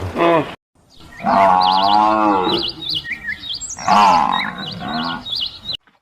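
A cow mooing: one long wavering moo, then a second shorter call, with small birds chirping in the background.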